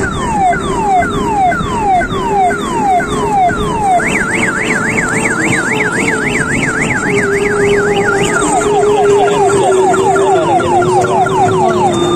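Electronic siren sound effect from a children's electric ride train, over a steady low hum. It cycles through patterns: falling wails about twice a second, then a fast up-and-down warble for about four seconds, then quicker falling sweeps.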